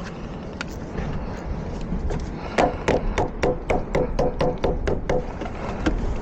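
Hammer tapping on metal: a quick run of about a dozen sharp taps, about four a second with a slight ring, starting a couple of seconds in and lasting about three seconds, during work on a loose battery terminal.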